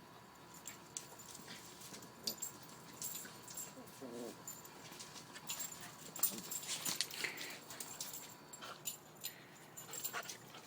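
Dogs at play: scuffling and scattered clicking from paws and bodies, with one short dog vocalisation about four seconds in.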